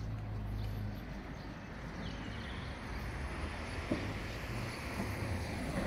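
Road traffic going by, a vehicle's tyre and engine noise swelling in the second half, over a low wind rumble on the microphone.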